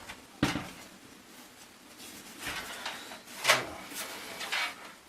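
Handling noises from a PC case being moved: a sharp knock about half a second in, then scraping and rustling with a loud clack about three and a half seconds in.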